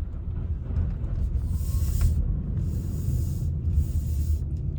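Car interior: a steady low rumble with three short hissing swishes, about a second apart.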